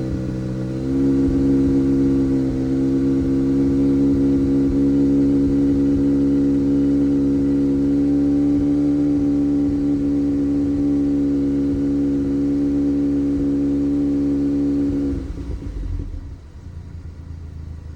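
2018 Audi A3 8V's 2.0 TFSI four-cylinder engine running steadily with a misfire that shows at idle and under load. It dips briefly about a second in, and its note drops away abruptly near the end, leaving a low rumble.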